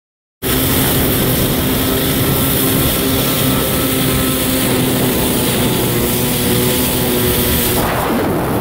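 1993 Kawasaki 650SX stand-up jet ski's two-stroke twin engine running steadily under way. It cuts in abruptly about half a second in.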